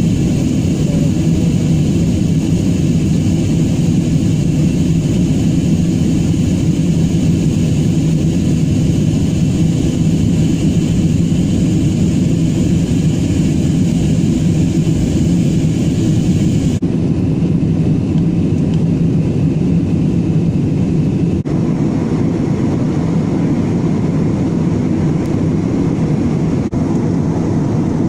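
Steady cabin noise of a jet airliner in flight: a low rumble from the engines and rushing air. The upper hiss drops out abruptly about 17 seconds in.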